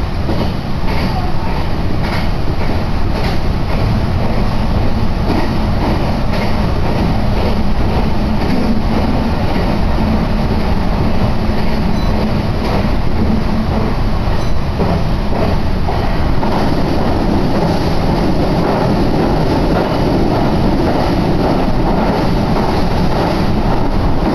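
Meitetsu Nagoya Main Line electric train running, heard from inside the carriage: a loud, steady rumble with repeated clicks of the wheels over the rails.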